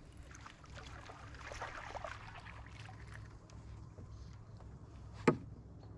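Water splashing and dripping, with one sharp knock a little past five seconds in.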